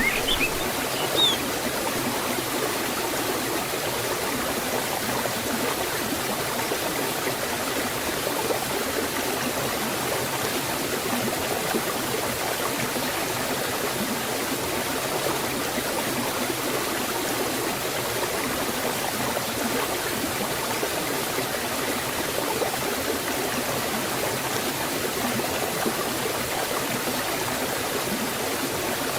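Forest water flowing steadily over a stream or small falls: a continuous, even rushing and splashing.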